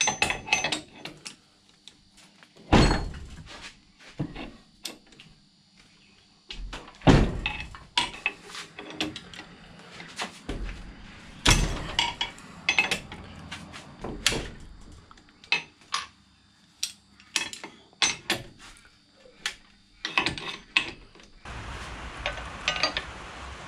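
Irregular knocks, clunks and clicks of hand tools, a wrench and a ratchet, working on a Yamaha Wave Blaster jet ski's two-stroke engine. Heavier thumps come about 3, 7 and 11 seconds in.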